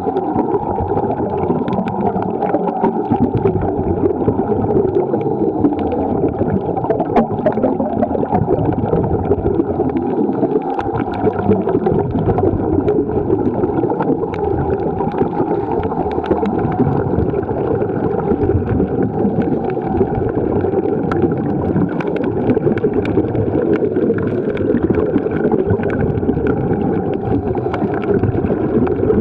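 Underwater ambience picked up by a submerged camera: a steady, muffled rush of moving water with scattered faint clicks.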